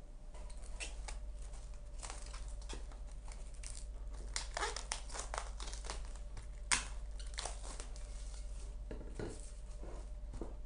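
Plastic cling film crinkling as it is stretched over a plastic tub and pressed down by hand, in irregular crackles, with one sharper crackle about two-thirds of the way through.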